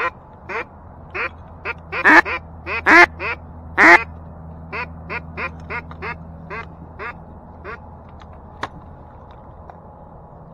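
A long run of duck quacks, about twenty in all. The three loudest come two to four seconds in, then the quacks carry on at a steady pace and fade away by about eight seconds, in the descending cadence of a hen-style quacking series.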